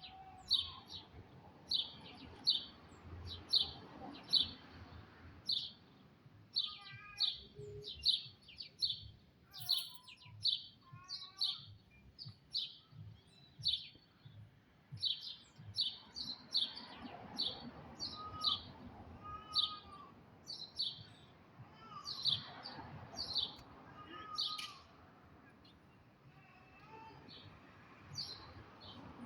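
Birds chirping: a short high chirp repeated about one and a half times a second throughout, with other lower, stepped bird calls mixed in, mostly in the first half.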